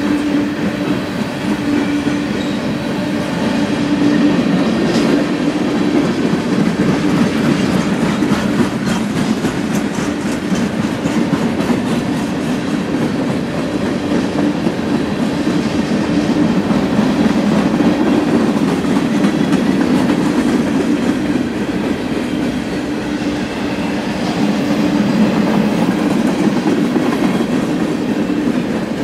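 Manifest freight cars (covered hoppers, tank cars and boxcars) rolling steadily past trackside: a continuous rumble of steel wheels on rail with fast clickety-clack and a steady hum underneath.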